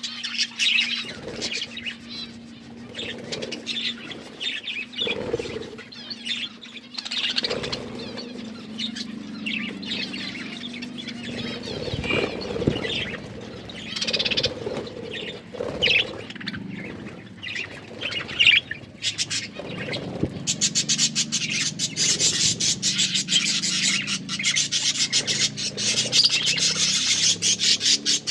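Budgerigars chirping and squawking in short, irregular calls. About two-thirds of the way through, the calls thicken into a fast, continuous chatter.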